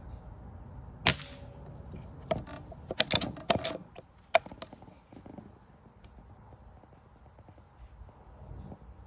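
A CO2 pellet rifle firing. A sharp crack with a short ring comes about a second in, then a quick run of clicks and cracks over the next three seconds.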